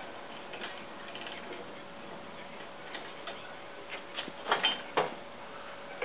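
Scattered clicks and metal knocks from a steel solar-tracker frame being tilted by hand on its pivot, with a few louder knocks about four and a half to five seconds in. A faint steady hum runs underneath.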